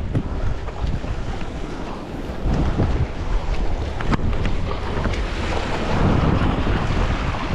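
Strong wind buffeting the microphone over rough surf washing against the rocks of a breakwater, with a louder wash of water near the end. A few sharp clicks break through.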